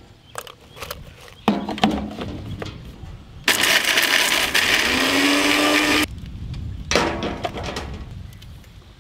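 Electric mixer grinder running for about two and a half seconds, its motor rising in pitch as it grinds Oreo biscuits to powder in a steel jar. It stops abruptly and is preceded by a few clicks and knocks from the jar and lid.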